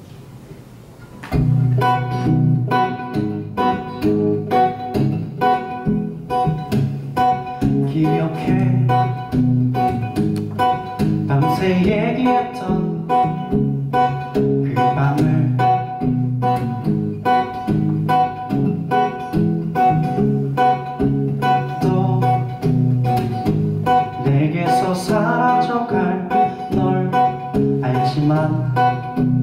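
Steel-string acoustic guitar strummed in a steady rhythm as a song intro, starting about a second in.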